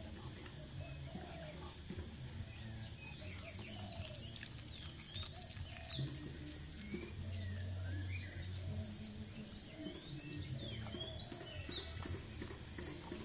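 Steady high-pitched insect trill with scattered bird chirps over it.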